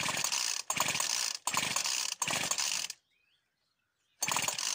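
Recoil pull-start cord being yanked repeatedly on a Partner strimmer's two-stroke engine, cranking it over with fuel squirted straight into the cylinder. It makes four quick rasping pulls, then a break of about a second, then another pull near the end; the engine has not yet caught.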